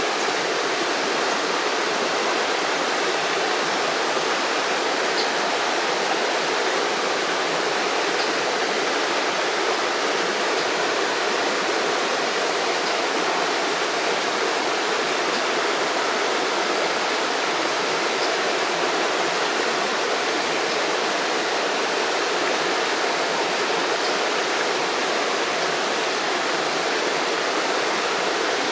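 River water running and gurgling over stones, a steady rushing splash that does not change.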